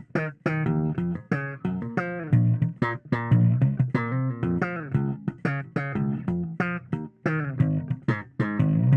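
Electric bass guitar played dry, with the compressor bypassed, in a quick run of separate plucked notes, several a second.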